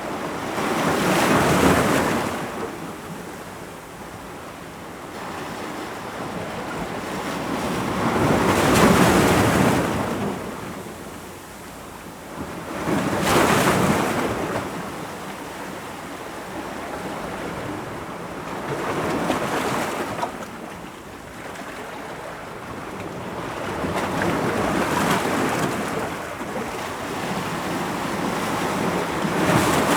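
Ocean waves breaking against rocks: six surges of surf, each swelling up and washing back, with steady wash between them.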